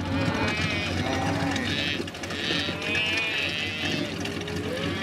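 A herd of cattle mooing, several calls overlapping one another.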